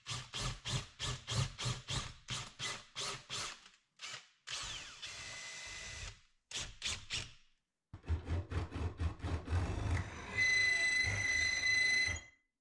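Cordless drill driving screws into a sheet-metal wall panel: a rapid run of short pulses, about six a second, for the first few seconds, then several steady runs, ending in a longer steady run with a high motor whine that cuts off near the end.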